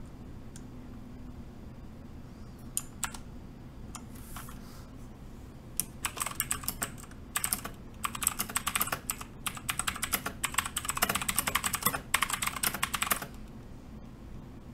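Typing on the Mechanical Eagle Z-77 mechanical keyboard's clicky Outemu Blue switches. A few single keypresses come first, then about seven seconds of fast, dense typing clicks, which stop near the end.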